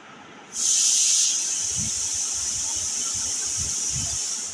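A loud steady hiss that starts suddenly about half a second in, over soft low gulping thuds as water is drunk from a mug.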